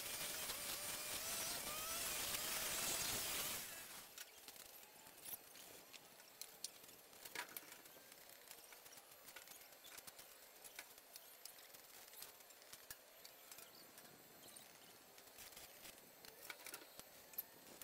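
A flying insect buzzing close by, its pitch wavering, which stops abruptly about four seconds in; after that only faint scattered clicks and taps.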